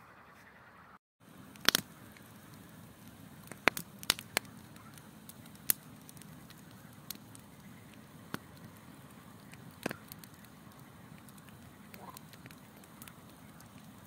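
Wood campfire burning, with sharp pops and crackles at irregular intervals over a low steady hiss. The loudest pops come in a cluster within the first six seconds, with another near ten seconds. A brief dropout about a second in.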